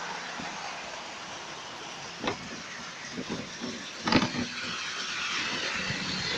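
Model train running on its track, a steady whirring hiss, with a few short knocks about two and four seconds in. The one about four seconds in is the loudest.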